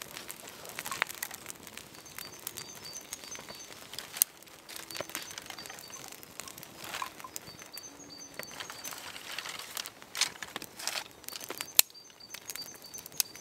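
Handfuls of thin dry twigs laid as kindling onto a small campfire: light rustling and scattered clicks of sticks knocking together, with two sharper snaps, about four seconds in and near the end. Small birds chirp in the background.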